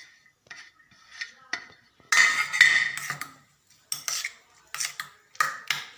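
A utensil stirring and beating an egg mixture in a bowl, scraping and clinking against the sides. It starts with light clicks, then a second of brisk scraping about two seconds in, followed by a few separate strokes.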